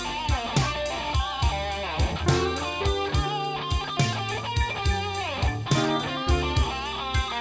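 Background music: electric guitar over bass with a steady drum beat.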